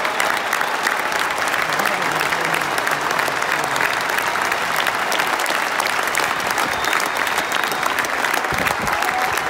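Large stadium crowd applauding steadily: thousands of hands clapping, forming a dense, even wash of sound.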